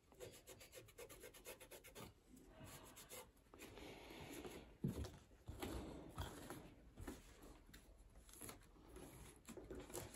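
Faint rubbing of a cloth wiping a plastic washing-machine door frame, in irregular strokes. About five seconds in there is a soft knock as the plastic is handled.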